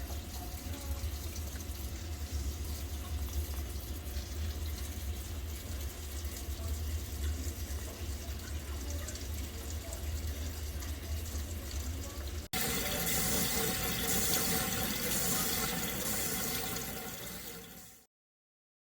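Water running steadily from a kitchen tap into the sink. About twelve seconds in there is a sudden cut to a louder, brighter rush of water that fades out, followed by silence.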